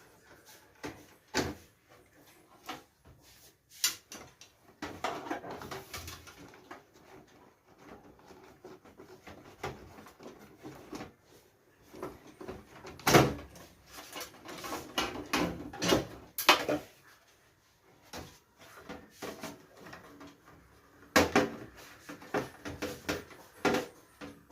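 Irregular clicks, knocks and rattles of desktop PC parts being handled and unscrewed during disassembly, in clusters with short pauses; a sharp knock about thirteen seconds in is the loudest.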